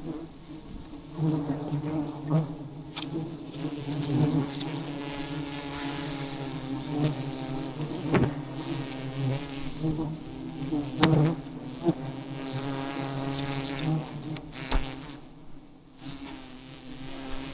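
A swarm of wild honey bees buzzing in a steady, dense hum around their hive, with several sharp knocks or clicks scattered through it.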